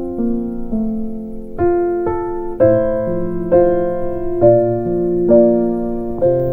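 Slow background piano music, with new notes or chords struck about once a second over held notes.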